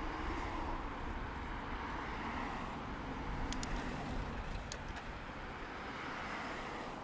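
Road traffic passing a bicycle: car tyre and engine noise swelling and easing off, with a few short sharp clicks about halfway through.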